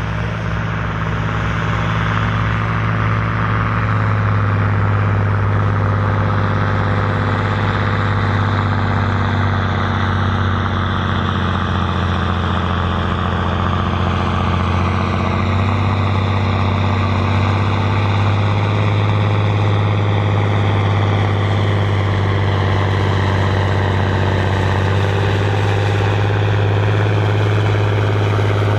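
John Deere 7930's six-cylinder diesel engine running hard under load as the tractor pulls a heavy weight-transfer sledge. The deep, steady engine note carries a higher whine that slowly falls in pitch as the engine is dragged down by the sledge.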